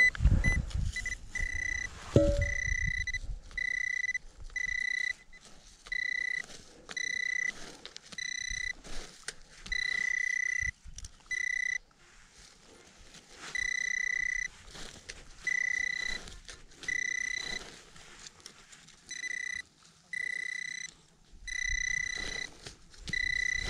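Handheld metal-detecting pinpointer beeping as it is probed through the loose soil of a freshly dug hole: a steady high beep in on-off pulses of uneven length, roughly once a second, signalling metal close to the probe tip. A short knock sounds about two seconds in.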